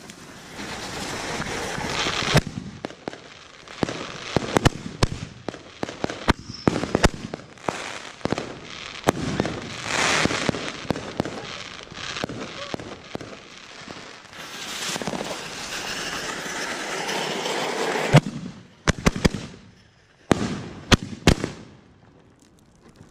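Consumer fireworks going off: long hissing stretches broken by many sharp cracks and bangs, thinning to a few single bangs near the end.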